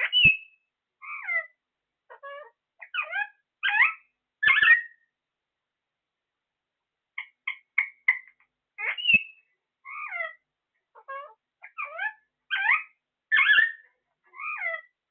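Short pitched animal calls, quick chirps followed by falling meow-like cries, in a run that repeats about every nine seconds with quiet gaps between the runs.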